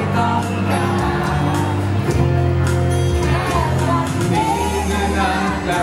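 A man singing a Thai pop song live into a handheld microphone over amplified backing music, with a steady bass line and a light, regular beat on cymbals.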